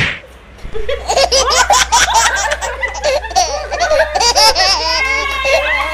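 A single sharp knock, then, from about a second in, several people breaking into loud, high-pitched laughter that overlaps and keeps going.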